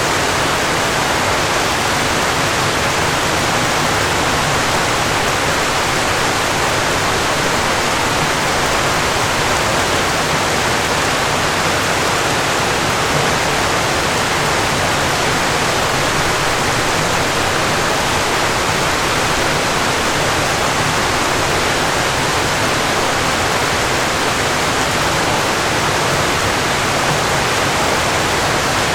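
Falling water rushing steadily, a dense, even hiss with no breaks or changes.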